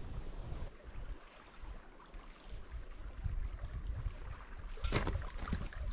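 Wind rumbling on the microphone over small waves lapping against the rocky lake shore, with a louder, crackling rush of water near the end.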